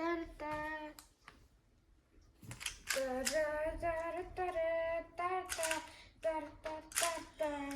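A high, child-like voice singing or humming a simple tune in held notes that step up and down, with a pause of about a second early on. Sharp clicks, the turning of a Rubik's Cube, are mixed in.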